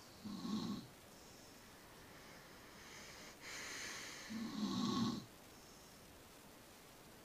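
Snoring: a short snore about half a second in, then a long hissing breath that runs into a louder snore about four and a half seconds in.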